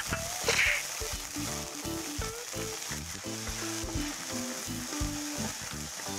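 Chopped garlic, onion and ginger sizzling and spattering in hot oil in a wok, stirred with a wooden spatula as they fry until crisp. Light background music with a simple stepped melody plays underneath.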